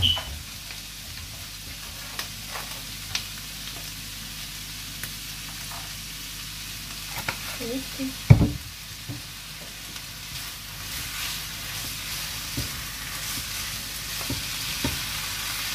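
Chicken fried rice sizzling steadily in a non-stick frying pan on a gas hob, with scattered clicks of stirring. There is one louder knock about eight seconds in, and the stirring with a spatula comes near the end.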